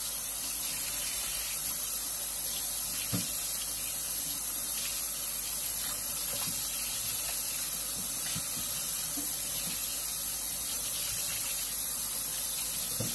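Kitchen tap running steadily into a stainless steel sink while pieces of meat are rinsed by hand under the stream, with a couple of faint knocks from handling.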